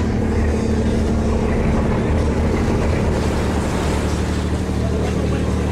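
An engine running steadily, a low even hum that holds its pitch throughout.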